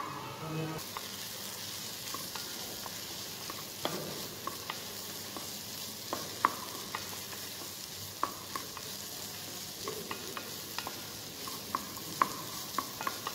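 Diced mixed vegetables, including zucchini and celery, frying in a small non-stick saucepan with a steady sizzle. Irregular taps and scrapes of a wooden spatula on the pan come as they are stirred to cook them until tender.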